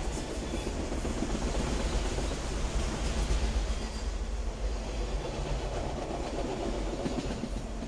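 A fast freight train of autorack cars rolling past, with the steady rumble of its wheels on the rails.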